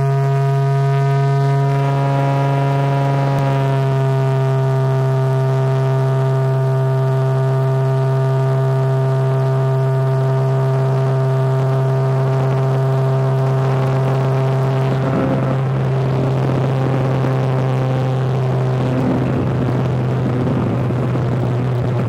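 Floatplane's propeller engine droning steadily at high power on its takeoff run across the water. About fifteen seconds in, the even drone turns rougher and noisier.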